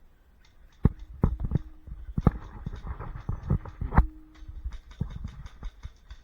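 An irregular run of sharp knocks and clicks, loudest and densest between about one and four seconds in, then lighter clicks.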